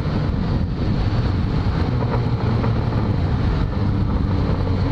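Yamaha XJ6's inline-four engine running steadily at cruising speed, with wind rushing past the rider's camera.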